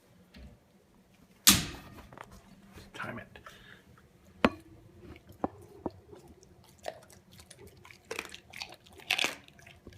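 An animal chewing and crunching on chicken: irregular wet crunches and sharp clicks of teeth, the loudest a sharp crunch about a second and a half in.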